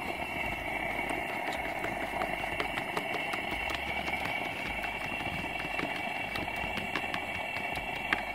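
A fork clicking and scraping against a paper plate in quick, uneven taps as eggs are beaten, over a steady hiss from a lit propane camp stove burner heating a pan of oil.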